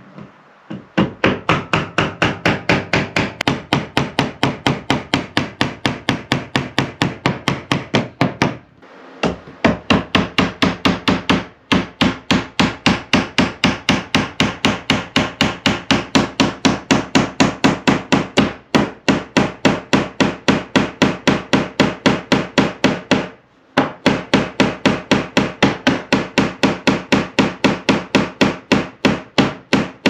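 A hand tool working wood in fast, even strokes, about three to four a second, breaking off briefly a few times.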